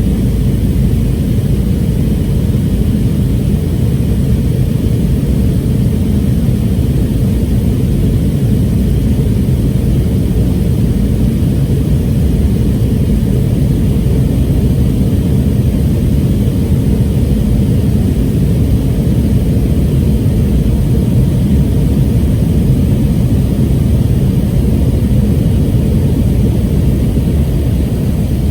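Steady, loud cabin roar of a Boeing 717-2BD during departure, heard from a passenger seat, mostly a low drone from its rear-mounted Rolls-Royce BR715 turbofan engines and the airflow.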